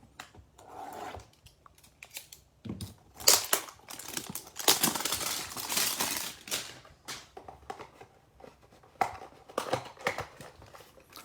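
A cardboard hanger box of baseball cards being torn open and the card pack inside pulled out: crinkling, tearing and scattered clicks, with the longest tearing stretch about halfway through.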